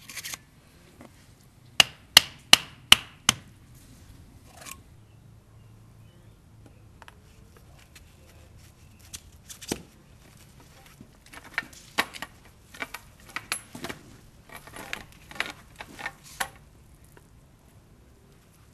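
Sharp knocks or taps on a hard object: a quick run of five about two seconds in, then a longer stretch of scattered, irregular taps later on.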